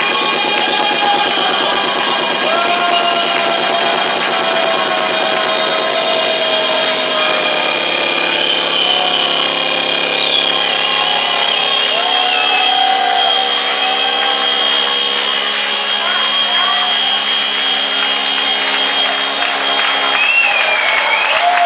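Loud electronic dance music in a club: held synth chords over a beat, with the bass and beat dropping out about halfway through into a breakdown of sustained chords. Crowd cheers and whistles rise over it near the end.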